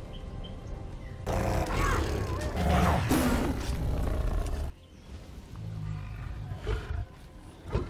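A lion's snarling roar from a film soundtrack, loud for about three seconds and cutting off suddenly, followed by quieter low rumbling.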